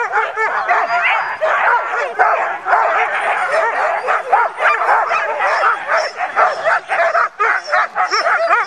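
A team of sled dogs barking and yipping all at once, many overlapping voices without a break.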